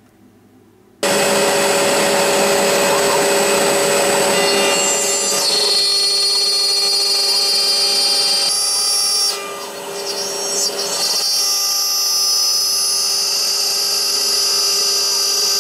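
CNC 6040 router's spindle running with a steady whine while its end mill cuts a circle into black plastic sheet. It starts suddenly about a second in and drops in level briefly around ten seconds in.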